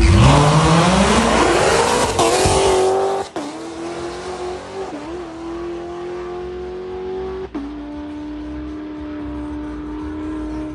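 Race car accelerating hard on a drag strip: the engine's pitch climbs steeply, breaks at a gear change about two seconds in, then holds a steadier, quieter note for the rest of the run.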